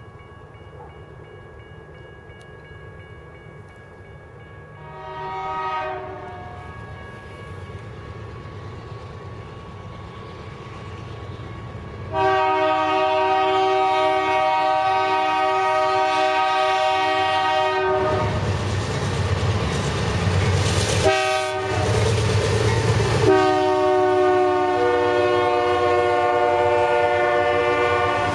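Freight train locomotive blowing its multi-chime air horn: a faint blast about five seconds in, then a loud, long blast from about twelve seconds. The horn breaks off as the locomotive passes with a loud engine and wheel rumble, gives a short blast, then sounds long again as the covered hopper cars roll by on the rails.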